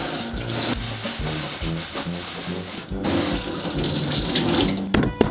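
Kitchen tap running water into a sink, over steady background music. Just before the end, sharp knife strikes on a cutting board begin as garlic is minced.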